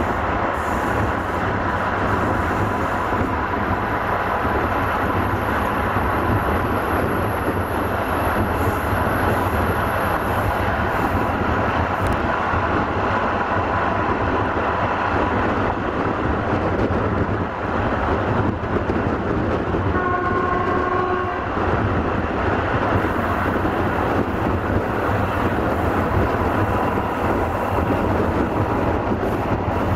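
Passenger train hauled by a BB25500 electric locomotive running at speed, heard from an open carriage window: a steady rumble of wheels on rail with wind. About twenty seconds in, the locomotive horn sounds one steady note for about a second and a half.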